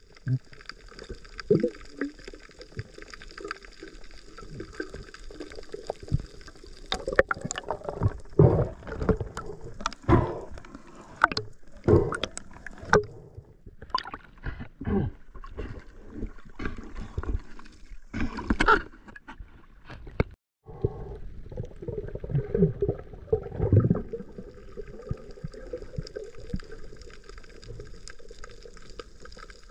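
Water gurgling and sloshing with a string of irregular knocks and clicks. The sound cuts out for a moment about twenty seconds in.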